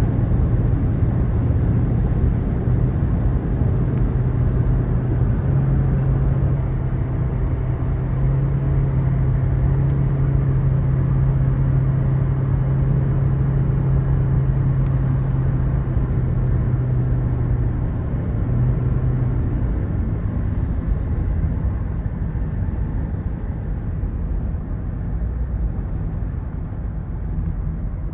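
Car driving on a highway, heard from inside the cabin: steady road and engine noise with a low hum that fades about two-thirds of the way through.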